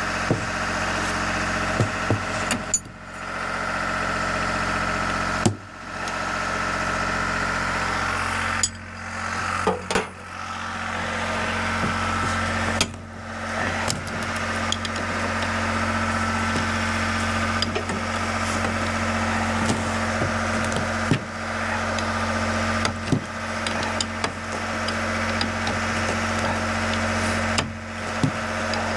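An engine running steadily at idle in the background, with scattered metallic clinks and knocks from a wrench and parts being worked on a snowmobile's suspension.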